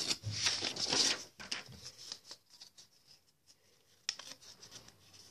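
Sheets of paper rustling and being torn up by hand. The crackling is loudest in the first second, fades, and comes back in a short burst about four seconds in.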